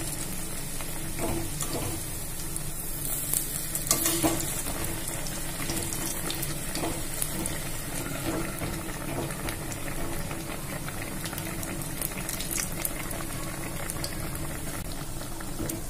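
Batter-coated stuffed bread pakoras deep-frying in hot oil in a kadhai, a steady sizzle and bubbling while they cook toward golden brown. A metal slotted spoon gives occasional light clicks and scrapes against the pan as the pieces are turned.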